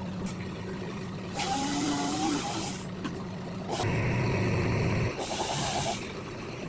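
An engine running at the work site, with two bursts of loud hissing, each one to one and a half seconds long, and a louder rumble between them.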